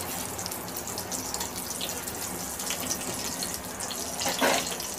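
Whole spices sizzling steadily in hot ghee and oil, with a brief louder patch about four seconds in.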